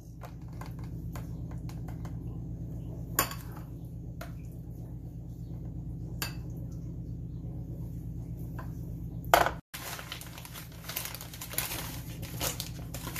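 A metal serving spoon clinking and scraping against a bowl and plastic takeout containers as curry is spooned out, with a few sharp clinks. About ten seconds in, after a brief cut, paper crinkles as a paper-wrapped roti is handled.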